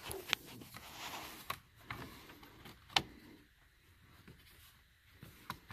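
Handling noise from work on a pickup's steering column: a few sharp clicks and light rattling of parts, the loudest click about three seconds in.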